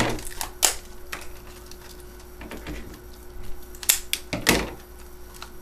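Stiff plastic clamshell packaging of memory sticks being cut open with scissors and handled. It gives a few sharp snips and crackles, with quieter rustling between them.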